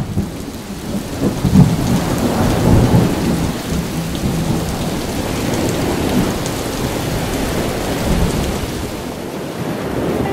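Thunderstorm: steady heavy rain with rolling rumbles of thunder, the loudest about a second and a half in and another near eight seconds.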